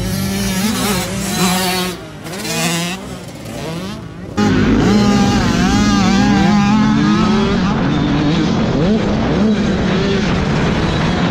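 Motocross dirt bike engines revving up and down as they ride the track, several bikes overlapping. About four and a half seconds in, a single close engine note takes over, rising and falling with the throttle as the bike carrying the camera is ridden down the track.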